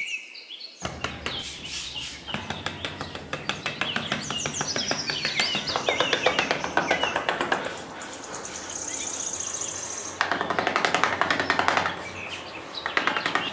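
A small metal trowel scraping and scratching through fine sand in quick repeated strokes, with birds chirping behind it and a high trill a little past the middle.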